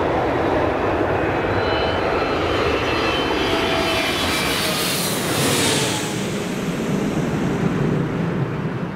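Boeing 787-9 on landing approach, its two GEnx-1B turbofan engines passing low overhead: a loud jet rush with thin high whining tones in it, brightest about five to six seconds in as the airliner goes over, then settling into a deeper rumble as it moves away.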